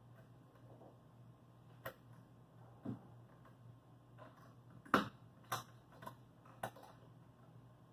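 Scattered light clicks and knocks from hand work on plywood boat panels, about six spread over several seconds, the loudest about five seconds in, over a faint steady low hum.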